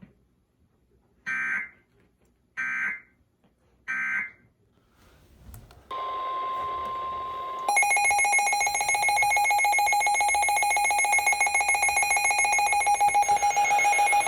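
Emergency Alert System broadcast tones: three short buzzy data bursts about a second and a half apart, then a steady beep, then from about halfway through a loud, rapidly pulsing alert tone.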